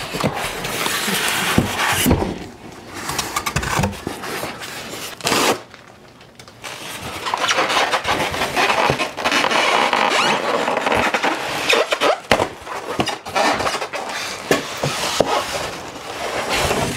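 Styrofoam packing scraping and squeaking against a cardboard box as it is pulled out, then the foam pieces pulled apart and a plastic bag crinkling. It comes in long stretches of scraping, with a quieter gap about six seconds in.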